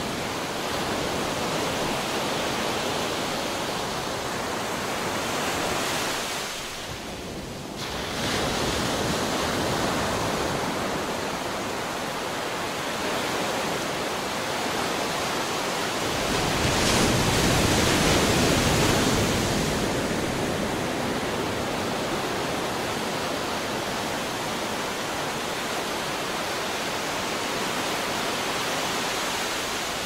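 Ocean surf: a continuous rush of waves that eases briefly about seven seconds in, then swells into a louder, deeper wave about sixteen seconds in that lasts a few seconds.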